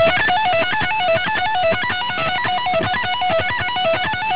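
Electric guitar playing an extremely fast pentatonic sequence in F-sharp minor: a rapid, unbroken run of single notes stepping up and down.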